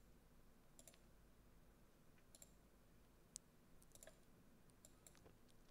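Near silence broken by several faint, scattered clicks of a computer mouse.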